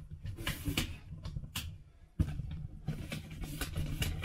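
Handling noise: irregular rustles and light knocks over a low rumble, with one sharp knock about two seconds in, as the camera is moved about around a plastic cooler.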